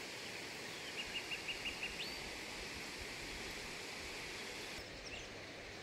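Steady rush of a river heard across the valley, with a bird calling a quick run of about six short high notes about a second in, ending in one rising note.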